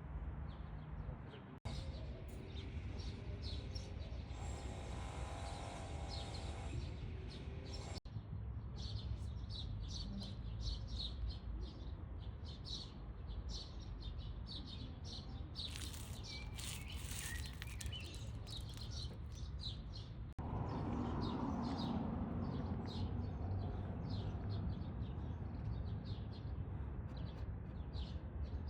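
Many small birds chirping rapidly and continuously, over a steady low rumble of outdoor background noise. The sound changes abruptly a few times, at edit cuts between clips.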